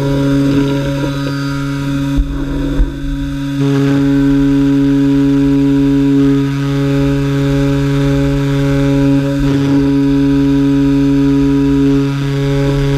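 Komo CNC router spindle running at a steady speed while cutting, a constant-pitched machine hum with a cutting noise over it. Two short knocks and a brief dip in the sound come about two to three seconds in.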